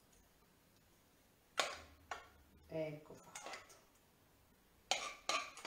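A kitchen utensil clinking and scraping against a small saucepan as cream is scooped out onto a cake. A handful of short, sharp clinks come through, the loudest about a second and a half in and a cluster near the end.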